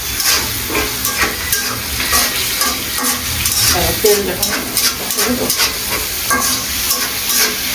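Spatula stirring and scraping a thick tomato and onion spice paste frying in oil in an aluminium pan, the masala sizzling under irregular scraping strokes.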